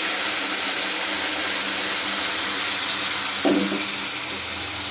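Hot jaggery syrup poured into butter-roasted semolina in a pan, giving a steady hissing, sizzling pour. A brief pitched sound cuts in about three and a half seconds in.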